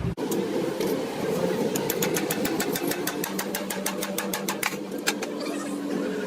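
Rapid mechanical ticking, about eight to ten ticks a second, over a steady machine hum.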